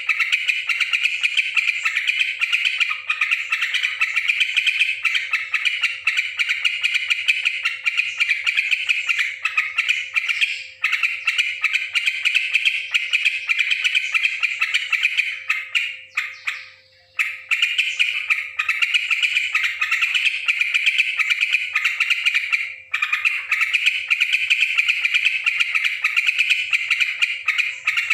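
Yellow-vented bulbul (cucak trucukan) giving a fast, noisy chatter of calls, nearly nonstop, with a brief break about two-thirds of the way through. A faint steady hum runs beneath.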